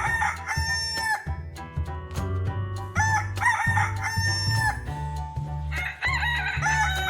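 Rooster crowing three times, about three seconds apart.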